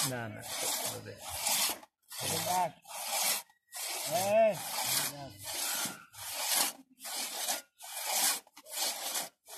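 Two-man hand saw cutting through the base of a standing tree trunk, pulled back and forth by two men. It makes a steady rhythm of rasping strokes, about two a second, through the wood.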